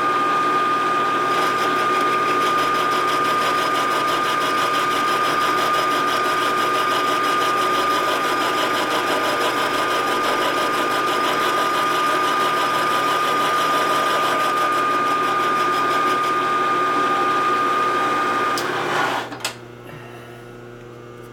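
Vertical milling machine with an end mill cutting the inside wall of an aluminium Harley-Davidson knucklehead crankcase, a steady whine over the chatter of the cut, taking a few thousandths out of the casting for flywheel clearance. About 19 seconds in the sound drops away, leaving a low hum.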